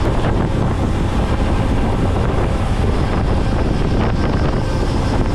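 Steady wind buffeting on the microphone of a bike-mounted camera at about 60 km/h, with road-bike tyres rumbling on asphalt underneath.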